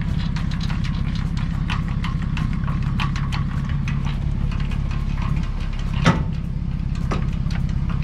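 Pickup truck engine idling steadily, under the clicks and squeaks of a boat trailer's tongue jack being hand-cranked to lift the coupler off the hitch ball. One louder metal clank comes about six seconds in.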